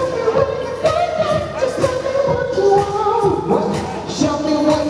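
Live pop music: singing with held notes over a steady beat, played loud through a concert sound system.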